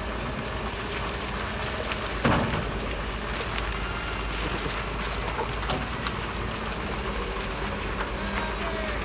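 Diesel fuel pouring into a Doosan 140 excavator's tank, a steady rushing splash over a low rumble. A single knock comes about two seconds in.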